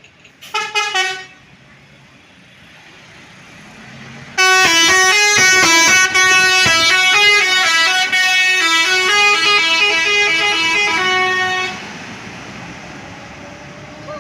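Bus 'telolet' musical horn (Basuri multi-tone horn): a few quick toots about half a second in, then from about four seconds a fast stepping melody of horn notes that plays for about seven seconds and cuts off.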